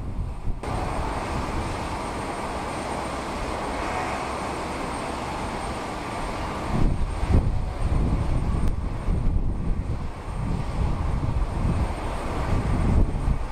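Steady jet aircraft engine noise across the ramp, with a faint high whine. From about halfway through, wind buffets the microphone in uneven gusts.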